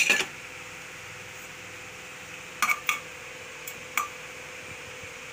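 A metal spatula clinking against the inside of a small pressure cooker while stirring seeds in hot oil: a clatter at the start, then a few sharp clinks between about two and a half and four seconds in, over a steady hiss.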